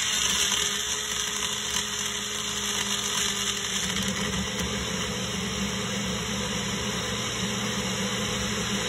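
Personal bullet blender's motor running steadily, blending a thick smoothie of frozen banana, blueberries, yogurt, ice and almond milk in its upturned cup.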